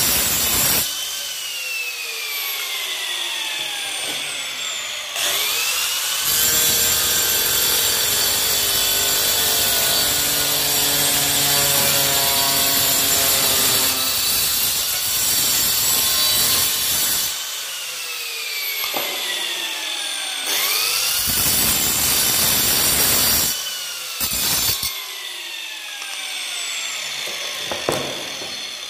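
Handheld angle grinder cutting ceramic tiles. The motor whines up to speed, the disc grinds through the tile with a harsh, noisy rasp, and the motor winds down with a falling whine after it is switched off. This happens about twice.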